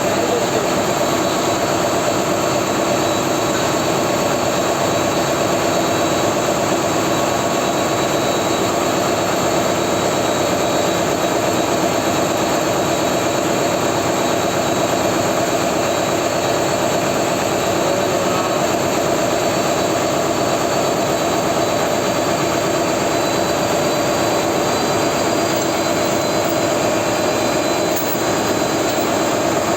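Steady, loud drone of diesel machinery running in a ship's engine room, unchanging throughout with a few constant tones over a dense mechanical noise.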